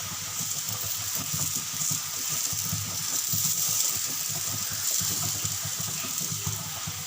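Potato pieces frying in hot oil in a pan, a steady sizzle.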